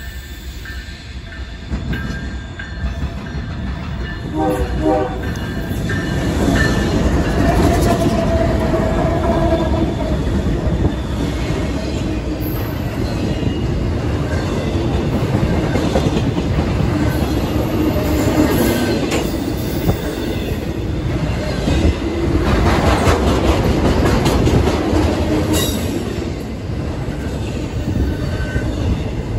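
Norfolk Southern intermodal freight train passing close by: a brief horn sound about four seconds in, then the locomotives and the stack and trailer cars rolling past with a steady rumble, rail clatter and some wheel squeal.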